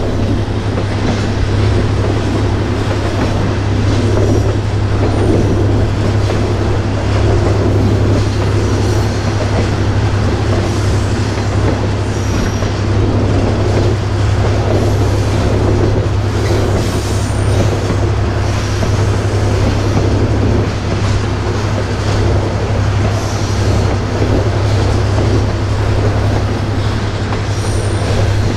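Railroad caboose rolling along the track, heard from on board: a steady low rumble and rattle of the wheels and car body, with a few faint, brief wheel squeals here and there.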